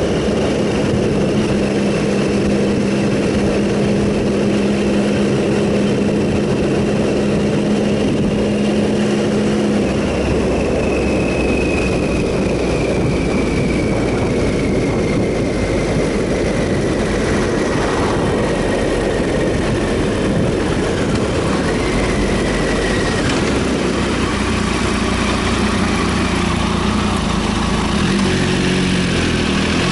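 Riding sound from a 2007 Triumph Sprint ST 1050's inline-three engine, under steady wind rush. The engine note holds steady for about the first ten seconds, then changes, and climbs near the end as the bike accelerates.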